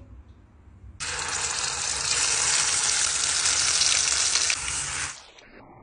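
Blended chilli paste for sambal hitting hot oil in a pot and sizzling loudly. It starts suddenly about a second in and stops abruptly about four seconds later.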